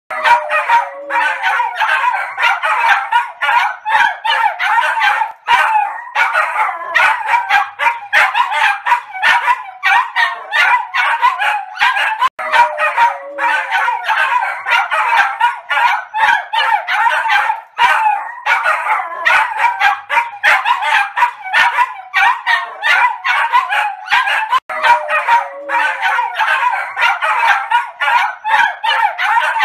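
Three small dogs, one of them a Maltese, barking all out together: rapid, overlapping, high yapping barks without a break. The same stretch of barking repeats about every twelve seconds.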